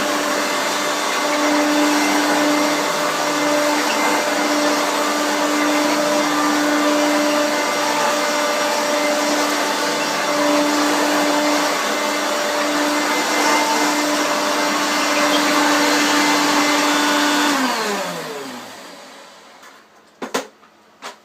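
Hoover Turbomaster U5094 vacuum cleaner running with a steady motor whine. It is switched off about three-quarters of the way through, and the motor winds down with falling pitch. A couple of sharp clicks come near the end.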